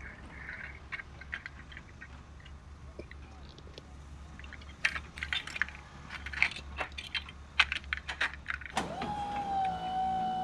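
Hard plastic clicks and clacks from a Lego Duplo toy truck being pushed and handled among loose Duplo bricks, busiest in the middle. Near the end a steady pitched hum starts suddenly and holds.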